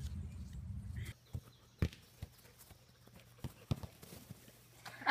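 Low rumble for about the first second, then a handful of sharp, scattered knocks and thuds as a soccer ball is kicked about on a grass lawn and a dog goes after it.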